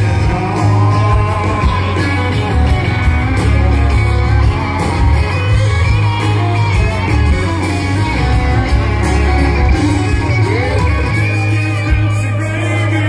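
Live country band playing loud through a PA: electric guitar, drums and a heavy, boomy bass under a singing voice, heard from within the crowd.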